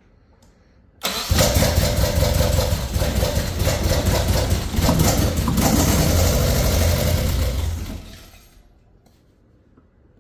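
Nissan 240SX four-cylinder engine starting about a second in and running roughly for about seven seconds, then shut off. It sounds like it is firing on only two cylinders; the owner suspects a dirty injector.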